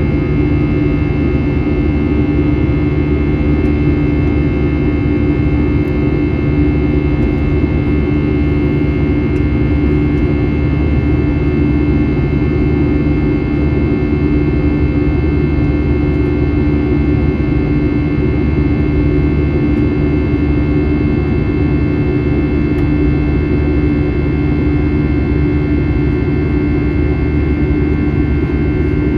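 Steady jet engine and airflow noise heard inside the cabin of an Airbus A321, a constant low rumble with a few unchanging whining tones above it.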